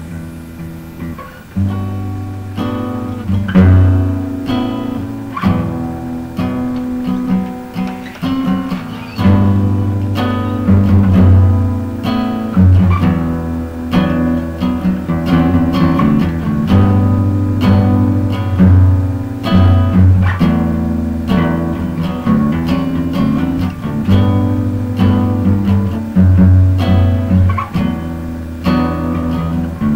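A band's recorded song led by acoustic guitar, plucked and strummed, with a steady low part underneath.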